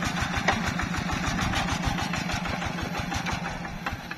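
Yanmar hand tractor's single-cylinder diesel engine running with a steady, rapid firing beat while the machine works in deep swamp mud; the sound fades somewhat near the end.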